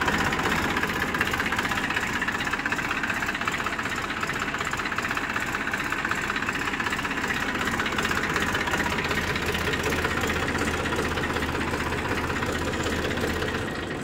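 Massey Ferguson 241 DI tractor's three-cylinder Simpson diesel engine idling steadily just after being started. The sound dies away near the end.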